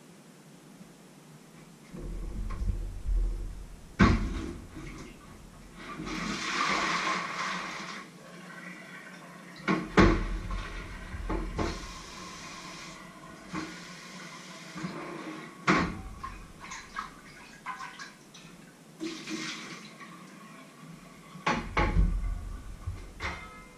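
Kitchen work: pots and lids knocking and clattering several times, with a few short spells of running or pouring water.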